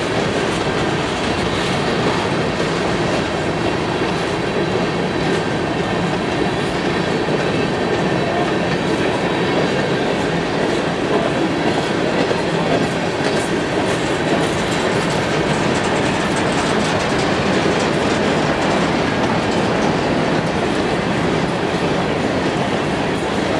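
Freight train's open-top hopper cars rolling past close by: a steady rumble and rush of steel wheels on the rails.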